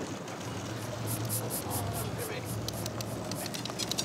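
Boat engine running with a steady low hum while a big-game trolling reel gives quick runs of high clicks as line is cranked in against a hooked fish.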